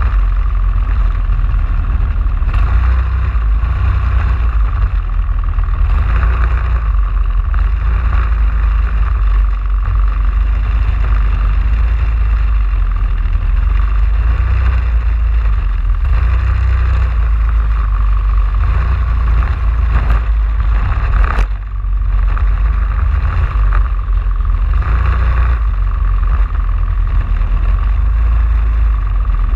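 Race kart engine running continuously at racing speed, heard through a camera mounted on the kart, with a heavy low rumble throughout. The sound briefly drops about 21 seconds in.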